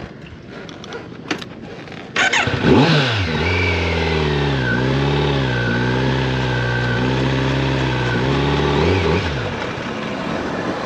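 Kawasaki Z900 inline-four motorcycle engine pulling away. About two seconds in the revs rise sharply, and the engine then runs hard under load as the bike gathers speed, its pitch falling and rising a few times.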